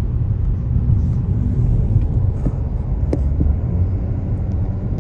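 Steady low rumble of a motor vehicle on the move, heard from inside it, with a couple of faint ticks.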